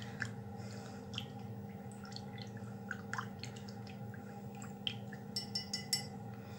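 A thin wooden stirring stick ticking and scraping against the inside of a glass measuring jug as a liquid is stirred: light scattered clicks, more of them near the end, over a faint steady hum.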